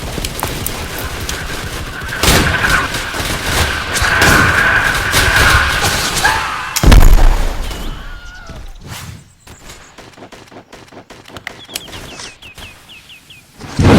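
Battle gunfire sound effect: a dense volley of rapid gunshots, then a loud deep boom about halfway through. After it the firing thins out to scattered single shots.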